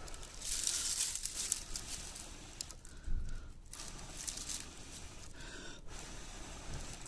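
Breath blown into a bundle of dry leaves around a glowing crampball fungus ember, in long puffs, to coax the ember into flame; the dry leaves crinkle in the hand.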